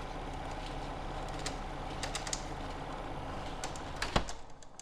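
Steady low mechanical hum with scattered light clicks and ticks. There is a louder click about four seconds in, then it fades out.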